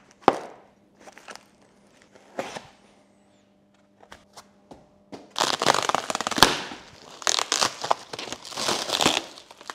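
Packing material being handled and crumpled: a few scattered clicks and rustles, then from about halfway a long stretch of dense crinkling and crackling.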